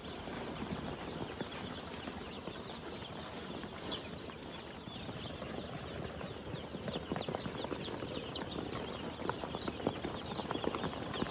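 A flock of chickens clucking and peeping, with many quick taps or clicks that come thicker in the second half.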